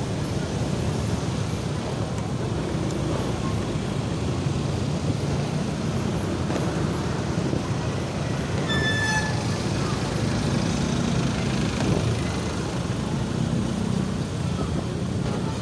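Steady motorbike and street traffic noise from riding among scooters in a busy street: engine hum and road rumble with no let-up. A short high-pitched toot sounds about nine seconds in.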